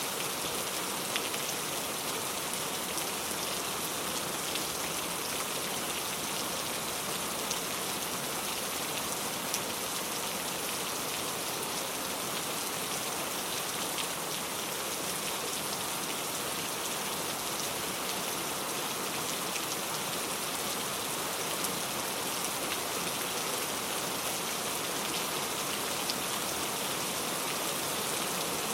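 Heavy rain falling steadily, a dense even hiss with scattered individual drops ticking through it.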